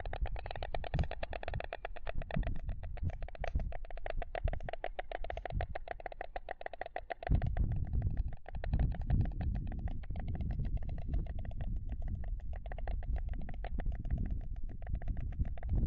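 White storks clattering their bills in the greeting display at the nest: a rapid, even rattle of wooden clacks. About seven seconds in the rattle grows fainter and a low rumble comes up beneath it.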